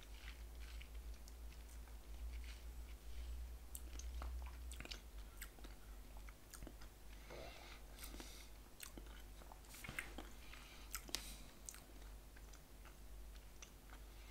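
Faint wet mouth sounds of a person working a sip of whisky around the mouth: scattered small smacks and clicks of lips and tongue, over a low steady hum.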